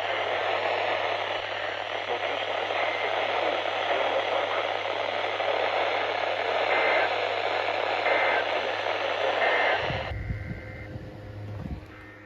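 Steady hiss of radio static from a weather radio receiver between broadcasts, with a low hum underneath and a few faint short tones. The static cuts off abruptly about ten seconds in, leaving only a quieter hum.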